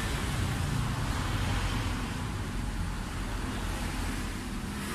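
Mitsubishi Colt Diesel Canter truck's diesel engine idling steadily.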